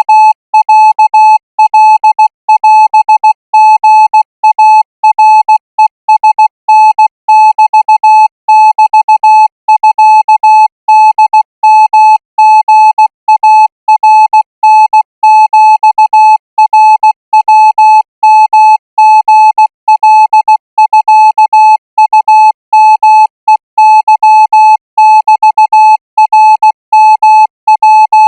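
Thai Morse code practice signal: a single steady beep tone keyed on and off in a continuous run of short and long elements (dots and dashes), sent at 20 words per minute.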